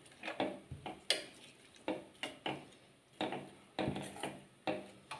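Steel spoon stirring a watery sardine curry in a stainless steel pan: irregular metal-on-metal clinks and scrapes against the pan's side, about two a second.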